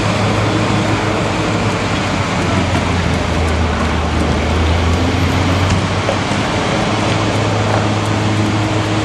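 Police water cannon trucks' diesel engines running with a steady low drone under a dense rushing noise; a deeper engine note swells for a few seconds in the middle.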